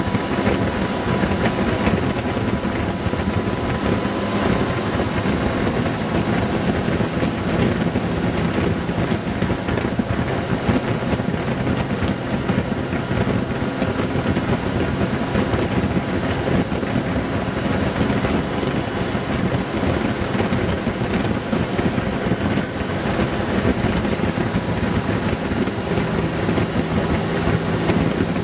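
Wind buffeting the microphone over the steady running of a Honda Gold Wing GL1800's flat-six engine at cruising speed.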